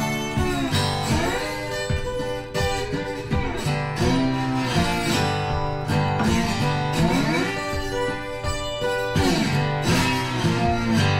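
Background music with guitar, its notes bending and sliding in pitch.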